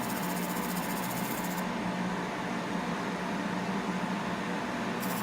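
Steady whirring of a laser separating machine running, a low hum under it. The highest hiss drops away for a few seconds in the middle and comes back near the end.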